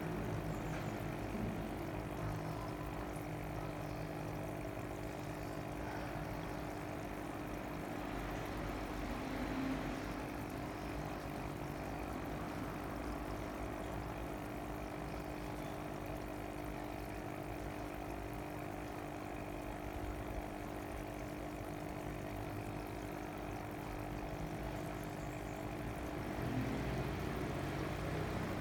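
Steady mechanical hum with several held tones, unchanging throughout.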